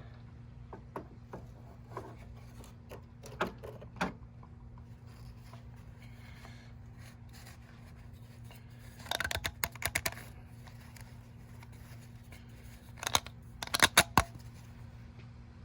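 Ratchet wrench clicking in short runs, in two bursts of quick clicks about nine and thirteen seconds in, with scattered single taps and clinks of tools between them. A steady low hum runs underneath.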